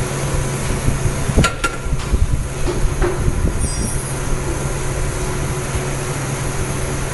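Steady low machine hum, with two sharp metallic clicks about a second and a half in and a few fainter ticks as metal fixture parts are fitted into the screen printing machine by hand.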